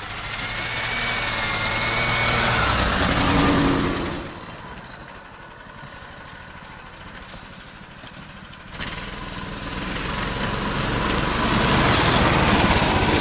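Engine of a small tracked motorized towing unit (motor-dog) pulling a sled through snow, running steadily. It swells and fades over the first four seconds, jumps up abruptly about two-thirds of the way in, and grows loudest near the end as the unit passes close.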